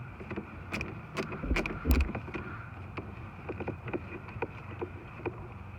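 Scattered small clicks and scrapes of a T20 Torx bit being worked into a hard-to-reach screw in the door trim, with a cluster of louder knocks about one and a half to two seconds in.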